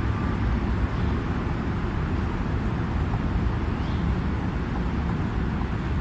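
Steady low rumbling background noise with no distinct clicks or knocks.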